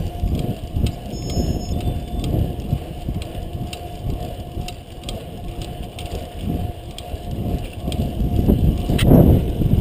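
Wind rushing and buffeting over an action camera's microphone on a moving fixed-gear bicycle. The gusts grow louder near the end.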